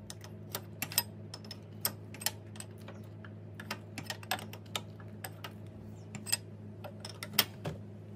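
Open-end wrench clicking on the metal hex of a tractor's hydraulic MBR switch as it is tightened and repositioned stroke by stroke: a string of irregular sharp metal clicks, one to three a second, over a low steady hum.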